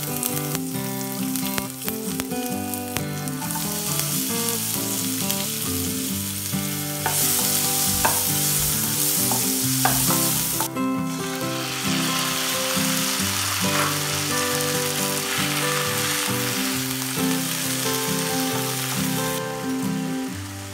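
Chopped garlic and onion sizzling as they fry in hot oil in a nonstick wok, stirred with a spatula. The sizzle swells about three seconds in and is loudest for a few seconds in the middle, with a couple of spatula knocks. Background music plays underneath.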